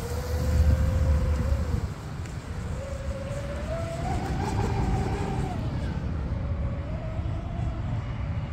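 Twin Rocket 3670 brushless motors of an RC speedboat whining at speed, the pitch climbing about halfway through and then easing back down, over a low rumble that is loudest in the first two seconds.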